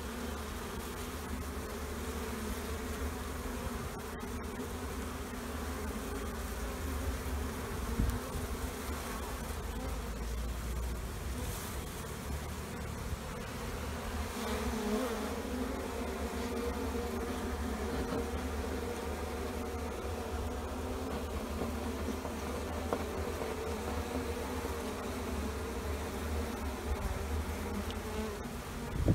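A large colony of honey bees buzzing in a dense, steady hum while their nest is opened and the bees are scooped off the comb, with a few brief clicks from handling.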